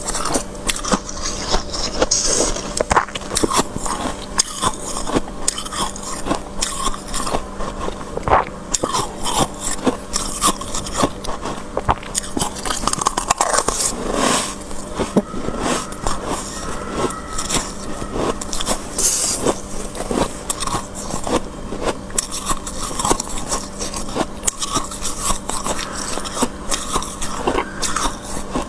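Freezer frost crunching and crackling in dense, irregular clicks, with a steady low hum underneath.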